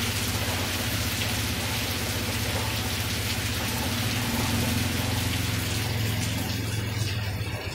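Steady rain falling on grapevine leaves, an even hiss with a low steady hum underneath; the hiss thins out near the end.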